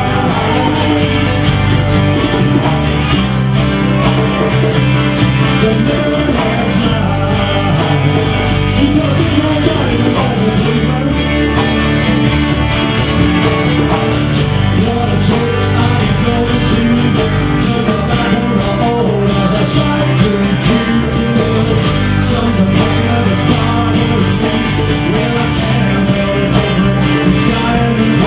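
Rock band playing live: guitars over a steady drum beat, with a voice singing.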